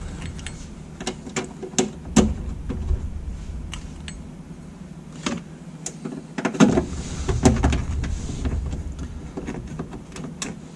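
Hands handling small parts and wiring on a Jeep's floor around the automatic shifter: irregular light clicks, taps and rustling over a low rumble, with a busier run of louder knocks about six to eight seconds in.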